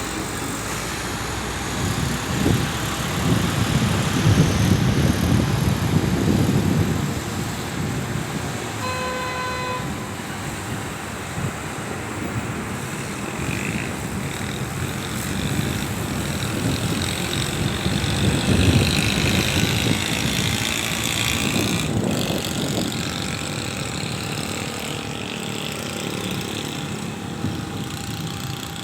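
Road traffic passing, with vehicles swelling louder and fading. A vehicle horn sounds once for about a second, about nine seconds in.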